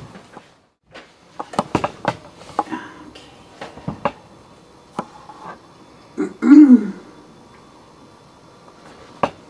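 Soft clicks and paper rustling from a card and a pair of glasses being handled, with a short vocal sound from a woman, rising then falling in pitch, a little past the middle as the loudest moment; a single sharp click near the end.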